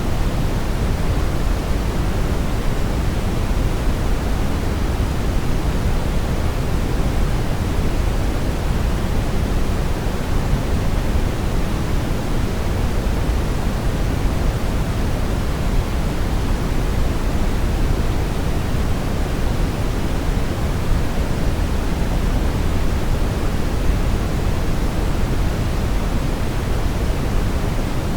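Brown noise: a steady, unchanging rumbling hiss, strongest in the low end and thinning toward the top, with no events or changes.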